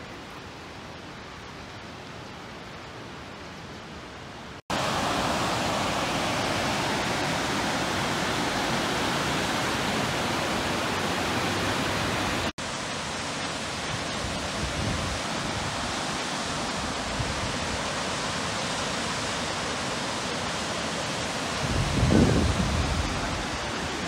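Steady rushing of a river and waterfall in a canyon, jumping louder about five seconds in and settling a little lower about halfway. Near the end a brief low rumble of wind buffets the microphone.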